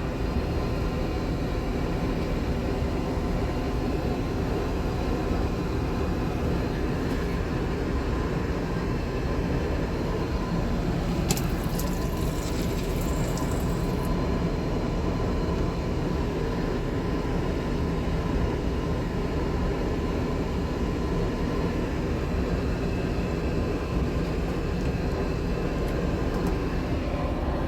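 Steady in-flight cabin noise of an Airbus A380 airliner, a dense low rush of engine and airflow sound. A single click comes about eleven seconds in, followed by a few seconds of faint high hiss.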